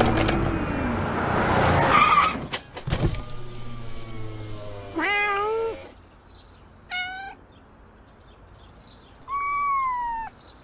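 Car noise for about the first two seconds, then a steady hum. A domestic cat meows three times, about five, seven and nine and a half seconds in.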